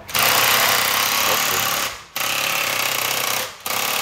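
Impact wrench hammering on a nut in three bursts of about a second and a half each, with short pauses between.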